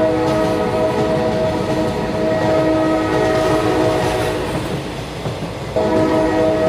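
Train horn sounding a sustained multi-tone chord over a low rumble. The horn fades out about four and a half seconds in and blares again near six seconds.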